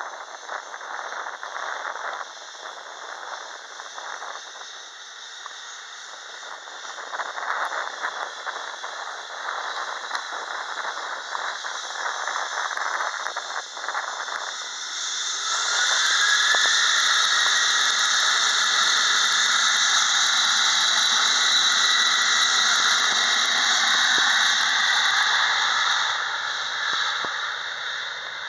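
Boeing 737-800's CFM56-7B turbofan engines running at low power, then spooling up to take-off thrust about halfway through with a rising whine. The loud whine and rush then hold steady, easing a little near the end as the jet rolls away down the runway.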